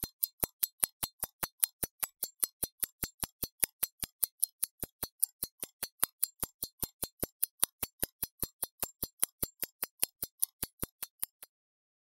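Molnija 3602 mechanical pocket watch ticking: the lever escapement's sharp, even ticks at about five a second. The ticking cuts off suddenly near the end.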